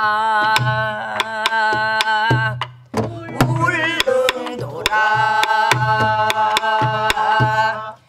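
A woman sings Korean namdo folk song (sinminyo) in long, held, steady-pitched notes, in two phrases with a short break about three seconds in. A buk barrel drum keeps the dongsalpuri rhythm under her, with deep strokes on the drumhead and sharp stick clicks.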